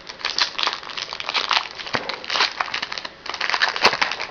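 Foil trading-card pack wrapper crinkling as it is handled and opened, a dense irregular crackle with a brief pause after about three seconds and a sharp click near the end.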